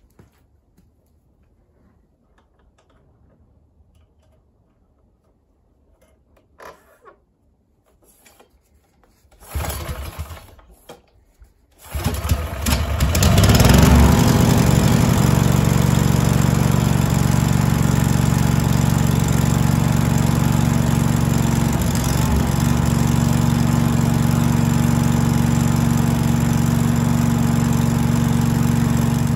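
Faint handling clicks, then the BCS 850 walk-behind tractor's 14 HP Briggs & Stratton Vanguard engine turns over briefly, catches about twelve seconds in and settles into a steady run. It runs now that a clogged carburettor main jet has been cleaned.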